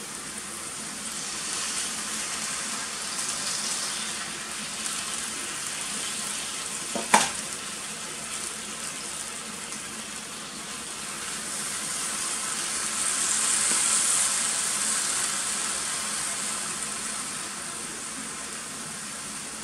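Sukiyaki sizzling in a cast iron pot as warishita made from homemade mentsuyu is poured in over the beef and vegetables; the sizzle grows louder in the first few seconds and swells again a little past halfway. A single sharp knock about seven seconds in.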